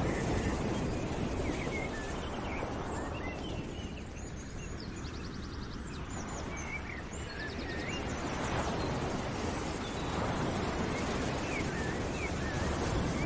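Outdoor ambience: small birds chirping and trilling over a rushing noise that swells and fades every few seconds.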